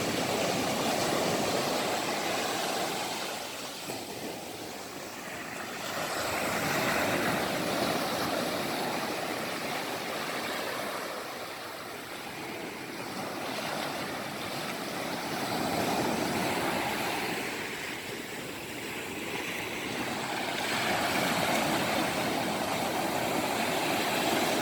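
Sea waves washing onto the beach, a steady rush of surf that swells and fades about every five or six seconds.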